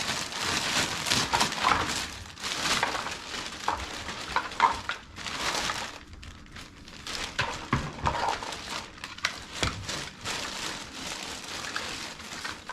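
Packaging rustling and crinkling while plastic shop vac parts are handled, with irregular clicks and knocks of the parts bumping together.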